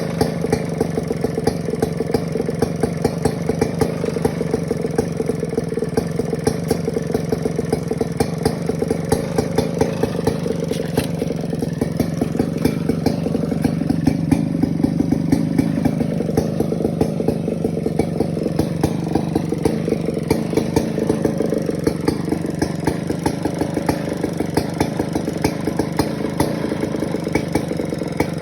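Two-stroke chainsaw running steadily under cutting load as it works through timber, a little louder for a few seconds in the middle.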